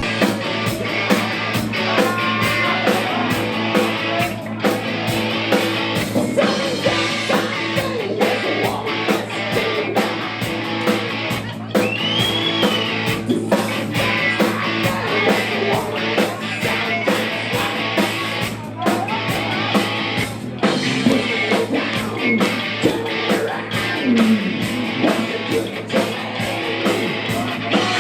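Rock music with guitar and a steady beat, with singing.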